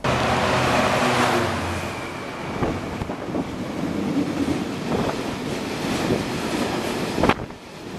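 Diesel-hauled freight train passing close at speed: the locomotive's engine running loud as it goes by, then the rumble and clatter of a long rake of hopper wagons, with occasional sharp wheel knocks and wind buffeting the microphone.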